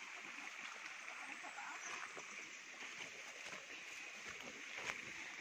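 Footsteps on a forest trail, crunching dry leaves and brushing through undergrowth in small irregular crunches and rustles, with one sharper crack near the end, over a steady background hiss.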